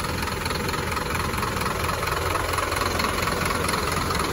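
Scania bus diesel engine idling steadily, heard up close at the open engine compartment.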